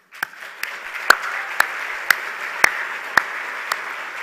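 Audience applause, with one pair of hands close to the microphone clapping sharply about twice a second over the crowd's clapping.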